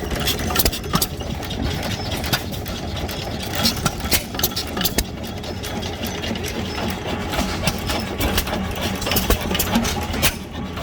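Antique hit-and-miss stationary engines running, a steady low chugging with many irregular sharp clicks and knocks.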